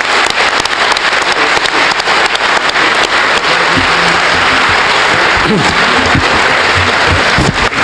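Audience applauding: dense, steady clapping at the close of a speech.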